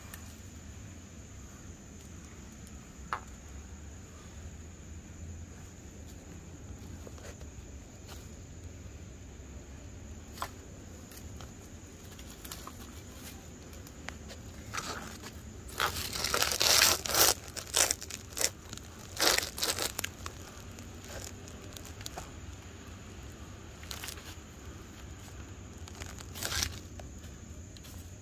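Dry leaves rustling and crinkling in a run of loud bursts for several seconds around the middle, and again briefly near the end, over a steady high insect drone.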